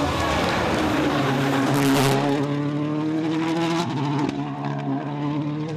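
Rally car engine at high revs as the car comes by at speed, loudest about two seconds in as it passes. It then pulls away with its note climbing, broken by a gear change about four seconds in.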